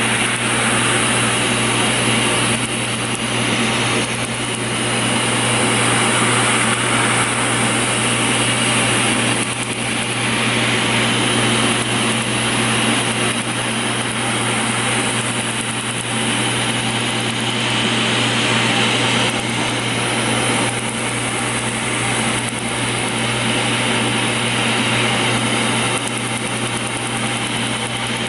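Tattoo-removal laser session machinery running steadily: the cold-air skin chiller blowing through its hose at the treated skin, over the laser unit's constant low hum.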